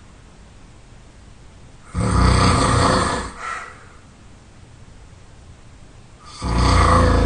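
A person snoring really loud: two rattling snores about four and a half seconds apart, each about a second long with a deep rumble, the first followed by a brief, softer breath.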